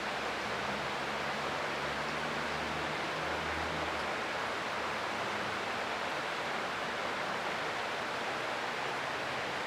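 Creek water rushing steadily, an even hiss with no change in level. A faint low hum sounds under it for the first few seconds, then fades out.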